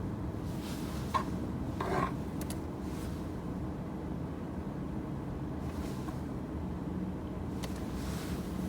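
Car engine idling steadily, with short rustling clicks of handling about one and two seconds in.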